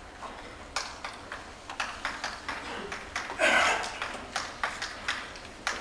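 Chalk tapping and scraping on a blackboard as words are written, a run of short sharp ticks with one louder, longer sound about three and a half seconds in.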